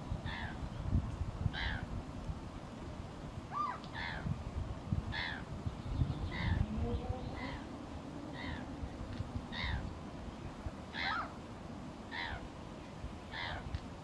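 A bird giving short calls over and over, roughly one a second.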